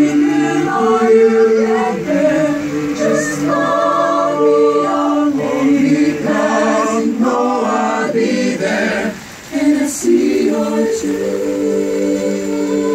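A high-school choir singing a cappella in several voice parts, holding sustained chords that shift every second or so. There is a short break about nine seconds in, then the choir comes back in.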